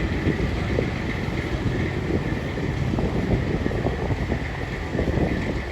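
Wind noise rumbling on the microphone outdoors, a steady low, fluttering rumble with a faint steady high-pitched tone throughout.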